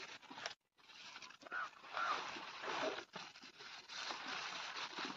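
Bullock eating green fodder: stalks tearing, rustling and crunching as it pulls and chews, with a brief gap a little after the start.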